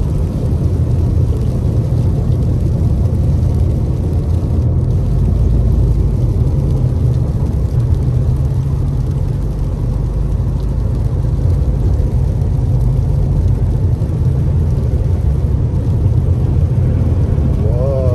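Steady in-cabin road noise of a car driving on rain-wet pavement: a low rumble of engine and tyres with a hiss of wet road over it.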